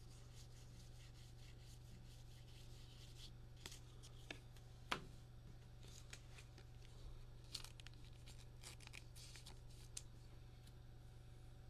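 Faint rustles and clicks of trading cards being handled and slid through the hands, the sharpest click about five seconds in, over a steady low hum.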